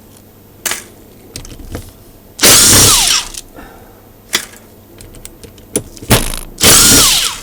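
Cordless impact driver run in two short bursts, about two and a half seconds and near seven seconds in, each opening with a falling whine, undoing stuck Allen-key bolts on a rotator housing. Sharp clicks of tool and metal handling fall between the bursts.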